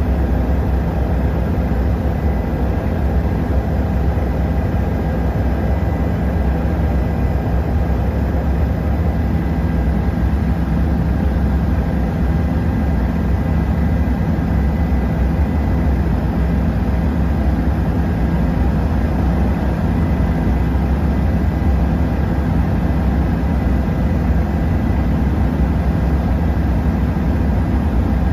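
Helicopter in flight: a steady low drone of the rotor and engine, with a faint thin whine above it.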